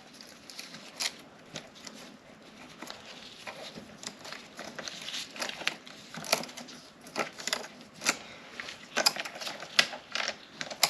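Loose saw chain being worked off the chainsaw's guide bar and drive sprocket by hand: the metal links click and rattle in irregular light taps, getting busier about halfway through.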